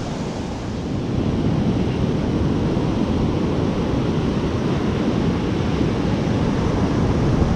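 Ocean surf breaking and washing up a sand beach, with wind buffeting the microphone.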